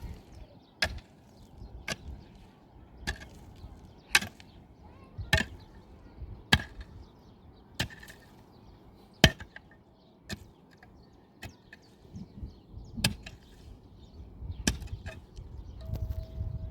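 Axe chopping wood in steady, regular strokes, about one blow a second.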